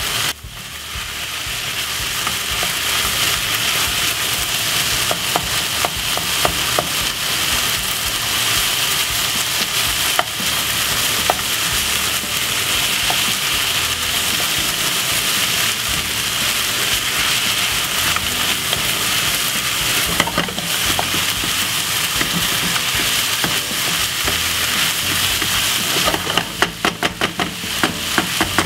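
Minced beef and onions sizzling as they brown in a hot pan, a wooden spoon scraping and stirring through the meat. Near the end there is a quick run of spoon strokes.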